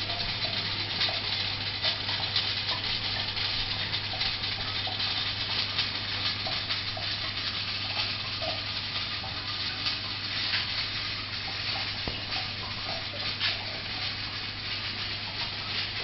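A running reflux still: a steady hiss with faint scattered crackles over a low, even hum, as the wash heats in the keg boiler and cooling water runs through the condensers.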